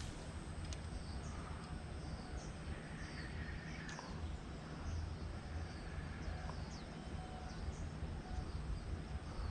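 Riverside ambience: small birds chirping in short, repeated calls over a steady high, thin insect whine, with a low steady rumble underneath.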